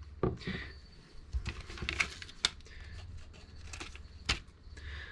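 Scattered light clicks and taps from parts being handled on a workbench: a chainsaw cylinder is set down and a plastic bag of small parts is moved. A faint steady low hum runs underneath.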